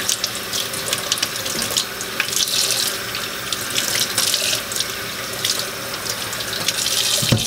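Kitchen faucet running cold water into a stainless steel sink, splashing irregularly as a dressed quail carcass is turned and rubbed by hand in the stream to rinse it. The water cuts off at the very end.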